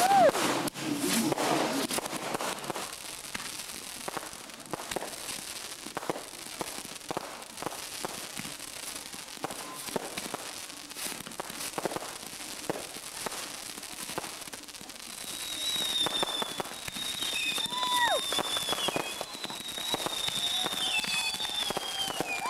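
Fireworks display: aerial shells bursting and crackling in a dense run of pops and bangs. It grows busier and louder about two-thirds in, where high, slowly falling whistles join.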